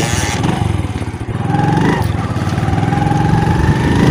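Small Honda motorcycle's engine running as the bike rides along, its note climbing gradually from about a second and a half in as it picks up speed.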